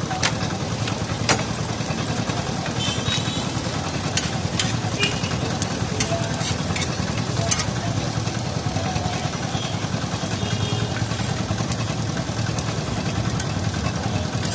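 Chicken seekh kebabs sizzling at a street-food stall, with scattered sharp metallic clicks and clinks, over a steady low hum of street traffic.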